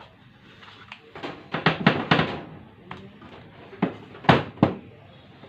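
Knocks and clatter of angle grinder parts being handled on a hard surface: a quick run of sharp knocks in the first half, then a few louder single knocks later on.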